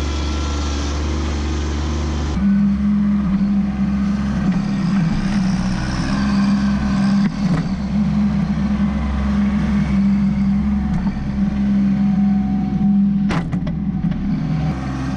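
Kubota B2601 compact tractor's three-cylinder diesel engine running steadily while the front loader works a stump bucket into the ground, with a single sharp click near the end.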